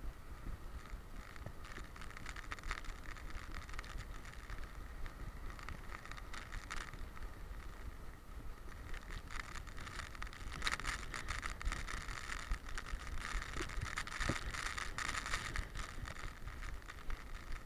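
Noise from an action camera strapped to a running boxer dog: a steady rumble of wind and rubbing, with a rhythmic scratchy rustle in time with her stride that grows louder about ten seconds in.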